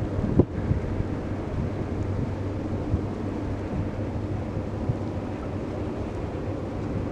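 Wind on the camera microphone with a steady low drone underneath, and a sharp gust bump about half a second in.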